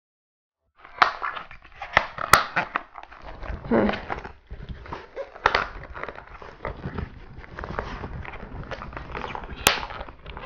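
Hard plastic parts of a cat track-ball toy clacking and snapping together as it is assembled by hand, with handling rustle between the sharp clicks, starting about a second in.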